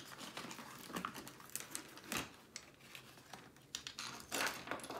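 Packaging rustling and crinkling as small diamond painting tools are taken out of a tool kit pouch and plastic bags, with light clicks and taps of plastic pieces handled and set down on a wooden table.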